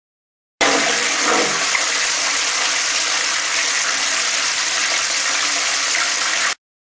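Loud rushing of water, starting suddenly about half a second in, running steadily for about six seconds, then cutting off abruptly.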